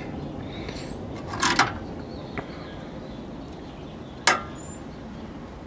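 Handling noises on a tube-TV chassis: a brief scrape about one and a half seconds in and a sharp metallic click a little past four seconds, over a low steady hiss.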